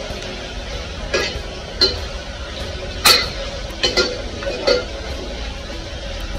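Stirring frying sliced onions in an aluminium pressure cooker, the utensil scraping and clinking against the pot about six times, the loudest knock about three seconds in.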